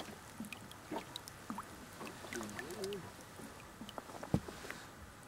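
Light water sounds against the side of a small boat: scattered small splashes and drips, with a single sharp knock about four seconds in.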